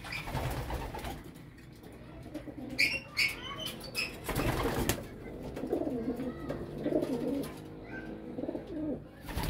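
Homing pigeons cooing in their loft, a low wavering coo repeated several times through the second half, with a short rustling burst about four and a half seconds in.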